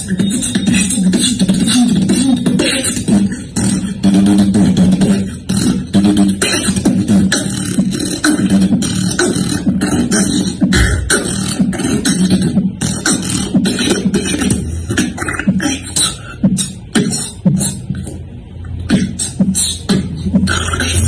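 Solo human beatboxing: rapid mouth-made kick, snare and hi-hat strokes over a held low vocal tone. The tone sinks deeper in the last part.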